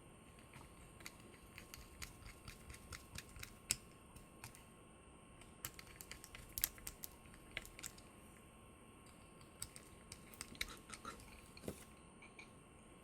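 Light, irregular clicks and taps of small parts and tools being handled, some in quick clusters, with a lull a little past the middle.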